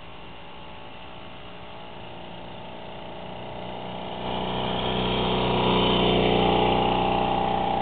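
Motobécane AV 79 moped's small two-stroke single-cylinder engine, with variator drive, running at a steady pitch as the moped rides up and passes close by, growing louder over the first few seconds.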